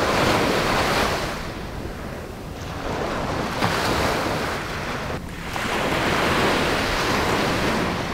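Small waves breaking and washing up onto a sandy beach, the surf swelling and easing about three times.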